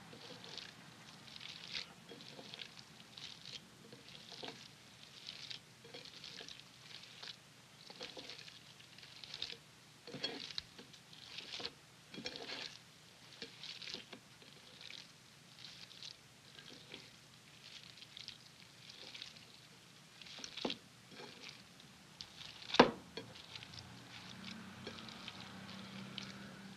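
Bare hands kneading and patting raw minced meat for a meatloaf on a plate: soft, wet squelches and pats, irregular, about one or two a second. Near the end comes a single sharp knock, louder than the rest.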